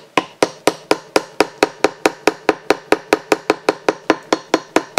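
A hammer gives rapid, light, even taps on a metal seal installer tool, about five taps a second, driving a prop shaft seal into an outboard lower unit's bearing carrier. The seal has already bottomed out, so these are final taps to seat it fully.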